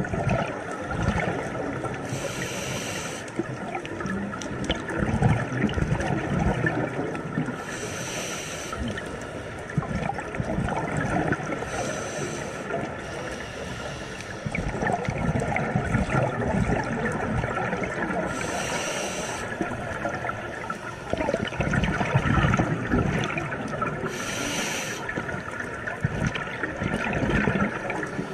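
Scuba breathing heard underwater: a diver's regulator hisses in five short breaths several seconds apart, with bubbling and gurgling of exhaled air between them.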